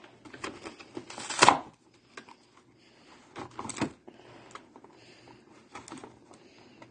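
Clear plastic toy packaging being pried and pulled open by hand: scattered clicks and cracks of hard plastic. The loudest comes about a second and a half in, with a small cluster near the middle.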